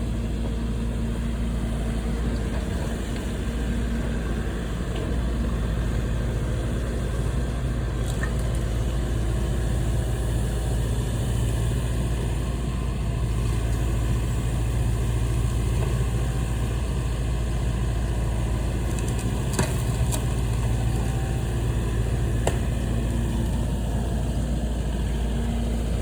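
Engine of a heavy demolition machine loading debris into a trailer, running steadily, with a couple of sharp knocks about three-quarters of the way through.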